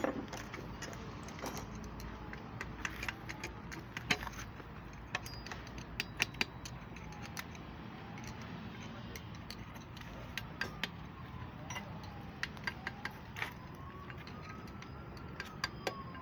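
Scattered sharp clicks and clinks like keys jangling, over a steady low hum, with a faint siren wailing slowly up and down in the background.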